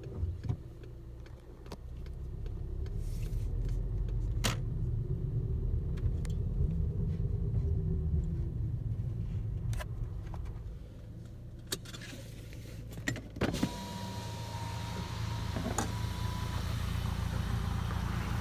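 Low rumble of a car rolling slowly, heard from inside the cabin, with a few sharp clicks. About two-thirds of the way through, the side window is lowered and the outside sound opens up, with a steady tone for a few seconds.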